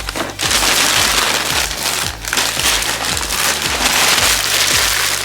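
A present being unwrapped: paper and packaging tearing and crinkling in a continuous dense crackle.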